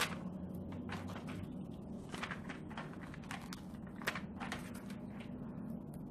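Soft, scattered rustles and ticks of a paper sticker sheet being flexed and handled, with sticker labels peeled off and pressed onto a paper planner page, over a faint steady low hum.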